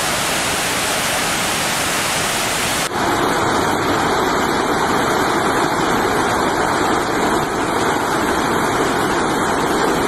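Swollen river rapids rushing over rocks in a steady, loud roar of white water. The flow is heavy with floodwater released from an upstream dam. The sound steps up slightly about three seconds in.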